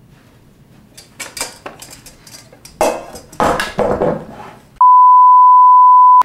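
A series of knocks and clattering handling noises, then, about three-quarters of the way through, a loud steady electronic beep at a single pitch of about 1 kHz. The beep lasts about a second and a half and cuts off suddenly.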